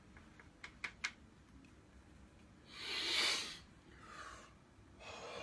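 A person snorting hard through a drinking straw: one loud, rushing snort lasting under a second, about three seconds in, then a softer breath. A few light clicks near the start.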